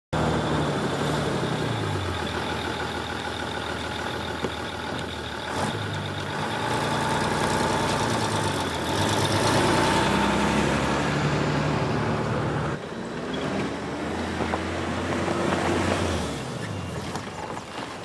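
A large diesel bus engine running, its pitch falling and rising several times as it revs. The sound changes abruptly about two-thirds of the way through.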